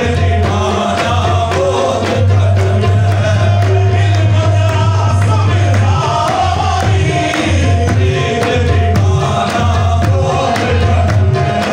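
Qawwali music: singing over sustained instrumental tones, with regular percussion strokes keeping a steady beat.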